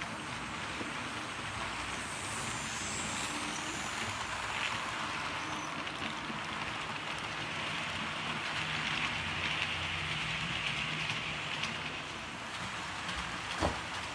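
Model railway trains running round the layout: a steady rattling hiss of small metal wheels rolling over the track, with a low motor hum underneath. It grows a little louder about two-thirds of the way through as a rake of coaches passes close, and a single sharp click comes near the end.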